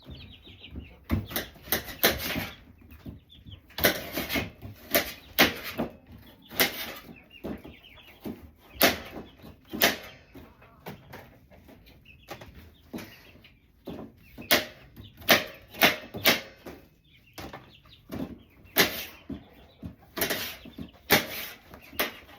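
Knife chopping through apples on a cutting board: sharp, irregular chops about once a second, sometimes two in quick succession. A chicken clucks softly between the chops.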